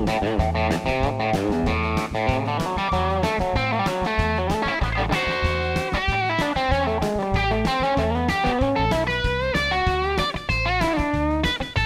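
Telecaster-style electric guitar playing a fast chicken-pickin' country lead: quick, snappy picked notes with string bends, over a steady low bass line.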